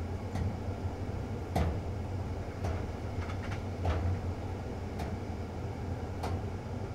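Inside a moving passenger train carriage: a steady low rumble from the running train, with irregular sharp clicks and knocks of the carriage fittings.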